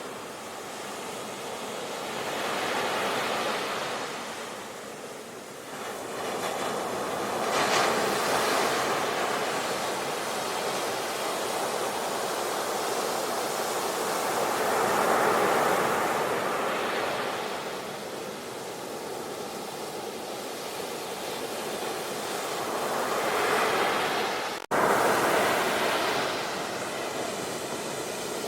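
Ocean waves breaking and washing in, a steady rush that swells and fades every few seconds. About two thirds of the way through, the sound cuts out for an instant and jumps back in suddenly.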